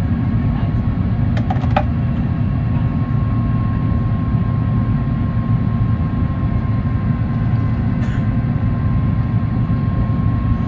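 Steady cabin noise inside an Airbus A350-1000 in flight: a low rumble of airflow and its Rolls-Royce Trent XWB engines, with a thin steady whine over it. A few light clicks sound about one and a half seconds in.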